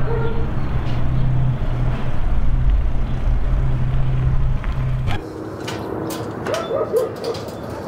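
Low steady rumble of a motor vehicle engine that cuts off suddenly about five seconds in, leaving quieter street ambience with a few scattered clicks.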